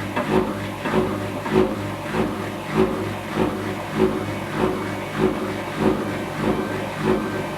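Whirlpool front-loading washing machine with its drum turning slowly, tumbling the load and rubber ducks. A steady motor hum runs under a swish-and-thump that repeats about every 0.6 seconds.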